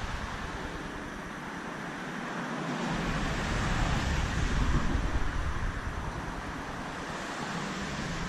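A steady rushing outdoor noise, with low gusts of wind buffeting the microphone from about three seconds in.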